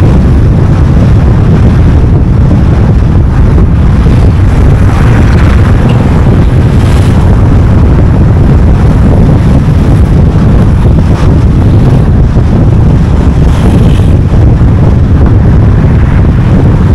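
A car driving at speed: steady, loud low rumble of road and wind noise buffeting the microphone, with a few faint brief hisses.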